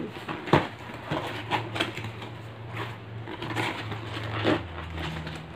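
Cardboard box flaps being pulled and worked open by hand: a string of sharp papery crackles and rustles, the loudest about half a second in, over a low steady hum.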